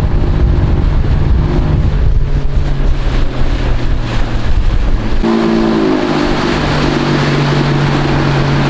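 Yamaha 50 hp outboard motor running steadily with the boat under way, a steady engine note over wind buffeting the microphone. About five seconds in, the wind rumble drops away and the engine note shifts.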